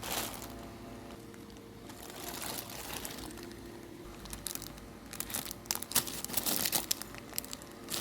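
Packaging being handled and crinkled during unboxing: soft rustling at first, then a run of sharp crackles in the second half.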